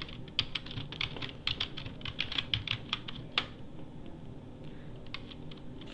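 Computer keyboard typing: a quick run of keystrokes for about three and a half seconds, then a few scattered key presses near the end, as a password is entered at a sudo prompt.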